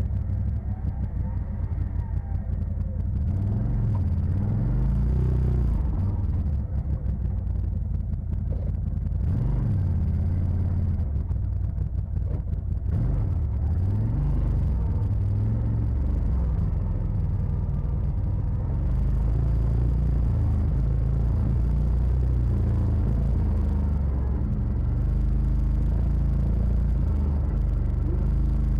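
Side-by-side UTV engine running as it is driven, a loud low drone whose pitch rises and falls several times with the throttle.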